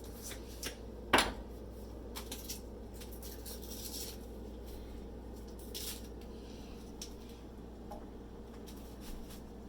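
Kitchen utensils knocking against a pot and dishes: one sharp clack about a second in, then scattered lighter clicks, over a steady low hum.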